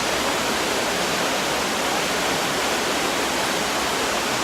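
Water rushing down a stepped stone cascade while the water display is running: a steady, even rush with no breaks.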